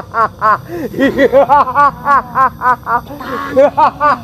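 A high-pitched cackling laugh: short voiced 'ha' syllables repeated evenly at about four a second, with a brief break a little after three seconds in.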